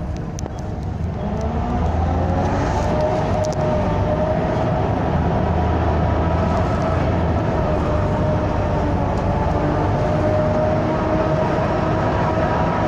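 Volvo B7TL double-decker bus running under load as heard from inside the bus. A whine rises in pitch over the first couple of seconds as the bus pulls away, then holds at a steady, slightly climbing pitch over the engine's running.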